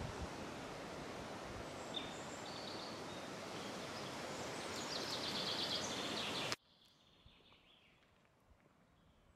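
Steady outdoor hiss with birds chirping over it, the chirps busiest shortly before it cuts off abruptly about six and a half seconds in, leaving only faint bird calls.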